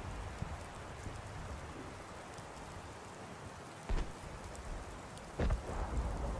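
A steady rushing hiss of outdoor ambience is broken by two dull, deep thumps, one about four seconds in and another a second and a half later.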